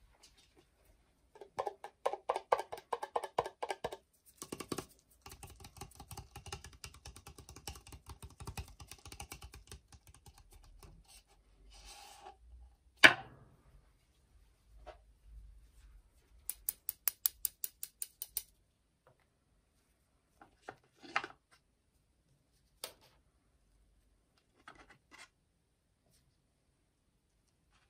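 Metal spatula scraping and tapping on the frozen steel plate of a rolled-ice-cream pan: a quick run of scraping strokes, several seconds of rougher scraping, one sharp clack about halfway through, a fast run of light ticks, then a few scattered taps.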